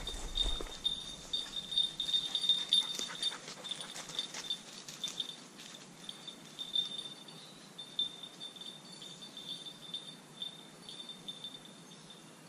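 A hunting dog's beeper collar gives a repeated high-pitched beep, the point-mode signal that the English setter is holding point out of sight. Rustling footsteps in dry bracken sound over the first few seconds and then fade.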